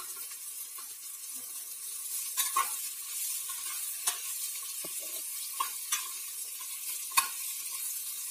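Yard-long beans and spice paste sizzling in oil in a metal pot, stirred with a metal spatula that scrapes and knocks against the pot several times.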